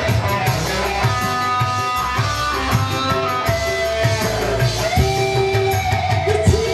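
Live dangdut band music: electric guitar and keyboard over a steady drum beat. A held, sliding melody line comes in about five seconds in.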